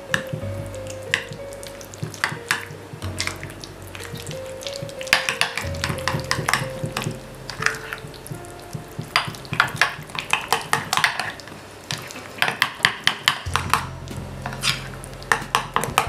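A fork beating cream cheese and pesto together in a glass bowl. It squelches through the cream and taps against the glass in quick runs of clicks, over soft background music.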